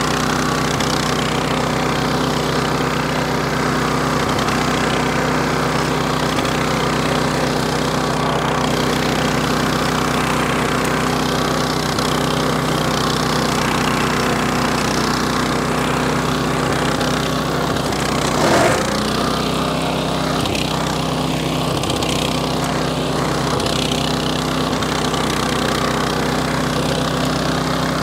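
8.5 hp walk-behind flail mower running steadily under load while its 60 cm flail rotor cuts tall grass. A brief louder knock comes about two-thirds of the way through.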